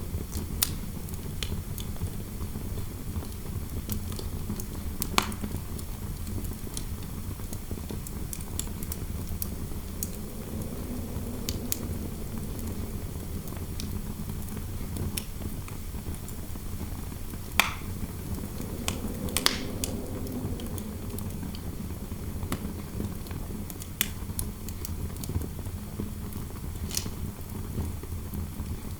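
Fire crackling with scattered sharp pops, over a steady low rumble of interior wind. A soft wind howl swells and fades twice, around 11 s and 20 s.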